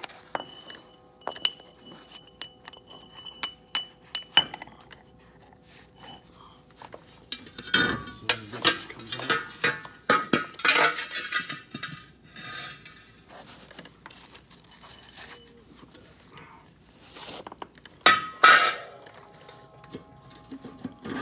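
Steel harrow discs and spacers clinking, scraping and clanking as they are worked off a disc harrow's square gang shaft. Light ringing clinks come in the first few seconds, the loudest scraping and clanking around the middle, and another loud clank near the end.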